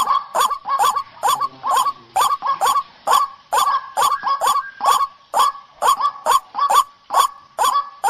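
White-breasted waterhen (ruak-ruak) calls from a bird-lure recording, a harsh honking note repeated quickly and evenly, about three calls a second.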